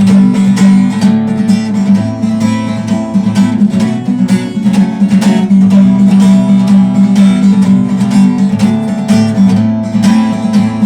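Acoustic guitar strummed in a steady rhythm, playing an instrumental passage between the verses of a song.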